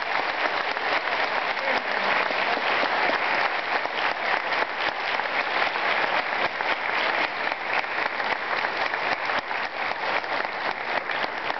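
Theatre audience and cast clapping together: dense, steady applause.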